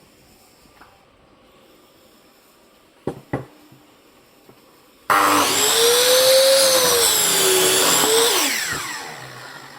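Two sharp knocks, then an electric power saw starts suddenly and runs loudly with a whine that sags and rises in pitch for about three seconds, then winds down with a falling whine.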